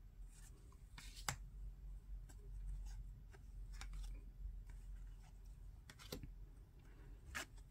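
AFL Team Coach trading cards being flipped through by hand, each card slid off the front of the stack with a soft flick or rustle roughly every second, the sharpest about a second in and near the end. A faint low hum runs underneath.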